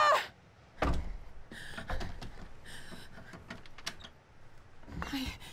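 Music cuts off abruptly, then comes a loud knock on a shop's glass entrance door about a second in, followed by scattered lighter knocks, clicks and rattles of the door.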